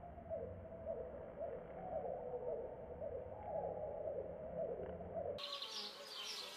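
Honeybees buzzing in slowed-down audio, heard as a low, wavering drone; about five seconds in it switches abruptly to a higher, brighter buzz.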